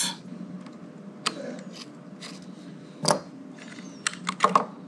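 Scattered small metal clicks and taps from handling screwdriver bits and the pot knobs and hardware on a Telecaster-style guitar's control plate, with a few clicks bunched together near the end.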